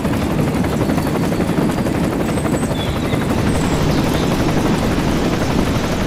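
Steady helicopter rotor chop, the sound that goes with a toy rescue helicopter hovering.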